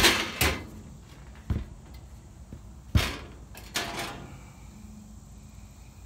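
Sheet-metal compressor access panel of a Carrier rooftop unit being taken off, with a series of metal clanks and rattles. The sharpest knocks come right at the start and about three seconds in, and a shorter rattle follows about a second later.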